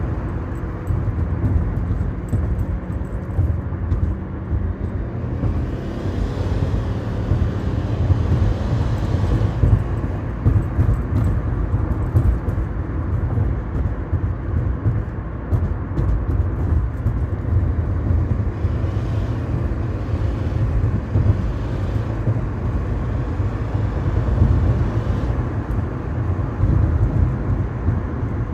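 2014 Subaru Forester XT's turbocharged 2.0-litre flat-four running under load: a steady low rumble with a fluttering, whirring sound, exhaust escaping past the gasket of an exhaust manifold whose nuts were under-torqued.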